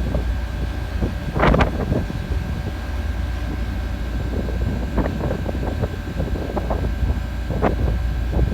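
Liebherr LTM 1100-5.2 all-terrain crane being driven, its diesel engine and drivetrain a steady low drone with a thin steady whine above it. A few short knocks or rattles break in, the loudest about one and a half seconds in.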